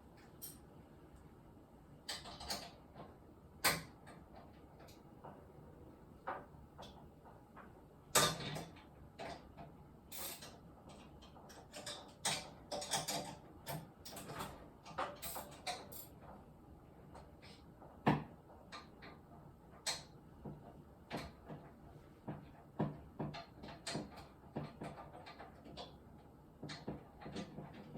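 Irregular clicks, knocks and clatter of hardware being handled, such as tools and parts during work on a lift, with a few louder knocks.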